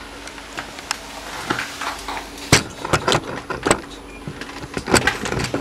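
Handling noise as a camera is moved, propped and equipment is set down on old wooden stairs: a string of irregular sharp knocks and clicks, the loudest about two and a half seconds in.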